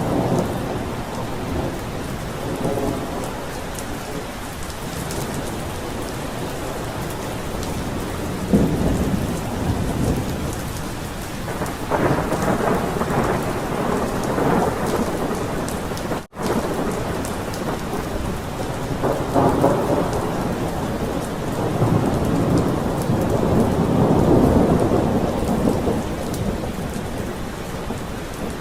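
Thunderstorm: steady rain with several long rolls of thunder swelling and fading. The loudest roll comes about two thirds of the way in. The sound cuts out for an instant about halfway through.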